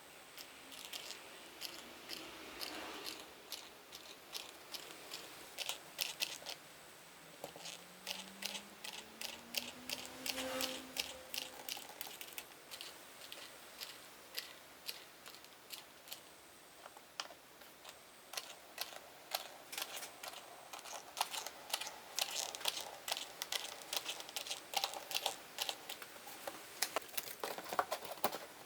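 Irregular light clicking and tapping, busiest in the last third, with a short rising hum about eight seconds in.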